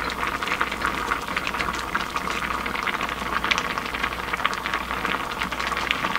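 Spicy tofu stew simmering in a glass pot: thick red broth bubbling with a steady crackle of many small pops, a low hum underneath.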